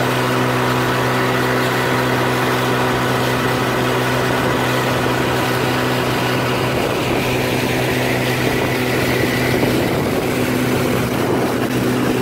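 1957 Johnson two-stroke outboard motor running steadily at cruising speed, driving the boat along, with water rushing past the hull.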